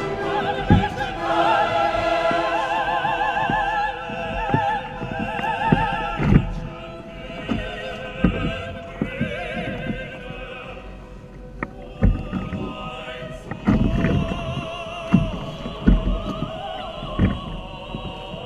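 Background music of classical, opera-style singing, several voices held with a wavering vibrato. Irregular low thumps sound beneath it.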